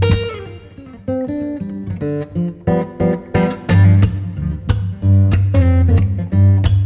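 Background music: plucked and strummed acoustic guitar over a steady bass.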